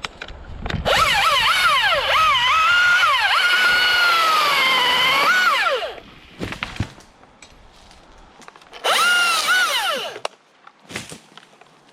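Two-stroke chainsaw running at high revs, its pitch dipping and rising repeatedly for about five seconds before it cuts off, then a second, shorter burst of revving about nine seconds in.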